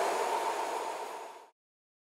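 Freight train of coal wagons hauled by a BR232 'Ludmiła' diesel locomotive, going away into the distance: a steady rumble that fades and then cuts off abruptly about one and a half seconds in, leaving silence.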